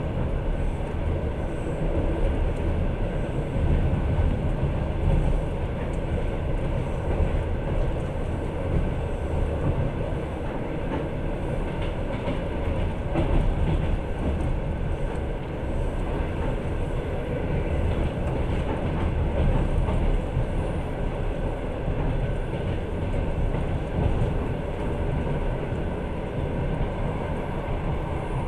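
Steady running noise of a moving passenger train heard from inside the carriage: wheels rolling on the rails with a low, even rumble.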